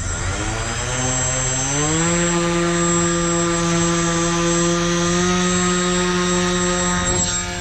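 Electric motor and 10x4.5 slow-fly propeller of an RC foam flying wing spooling up over about two seconds, then holding a steady buzz at high throttle for the launch; the level dips slightly near the end.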